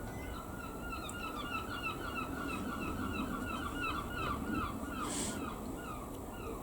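A bird calling in a rapid run of short chirps, several a second, for about five seconds, with a brief high hiss near the end.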